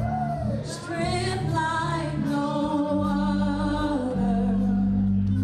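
Gospel choir and worship ensemble singing slow, held notes in a reverberant church, over keyboard accompaniment with steady low sustained chords.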